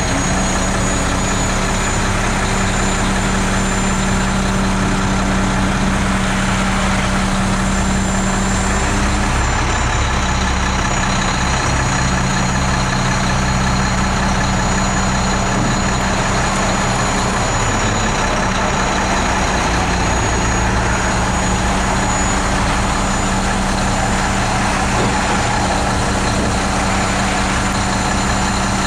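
Heavy truck engine running steadily while the rendering box's hydraulic tipper arm lifts a bin. The engine note shifts about ten seconds in and again near twenty seconds.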